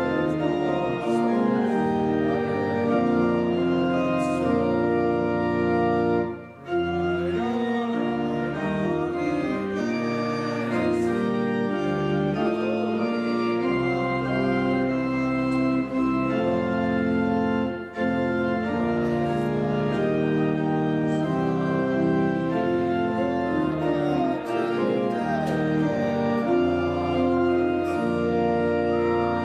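Church organ playing a hymn in held, slowly changing chords, with brief breaks between phrases about six seconds in and again at about eighteen seconds.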